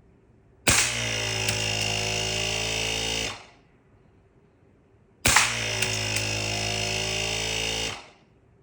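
Two shots from a homemade compressed-air BB gun with an electronic solenoid valve, a few seconds apart. Each opens with a sharp crack and is followed by a steady mechanical buzz lasting about two and a half seconds before it fades out.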